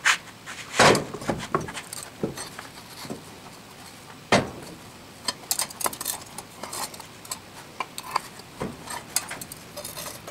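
Metal molding flask being lifted apart and a freshly poured aluminum casting pulled from the sand with tongs: irregular metal knocks, clinks and scrapes. Louder knocks come about a second in and again about four seconds in, with a run of small clinks after.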